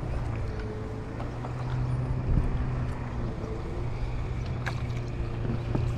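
An engine running steadily, a low even hum with no change in pitch, with a couple of sharp clicks near the end.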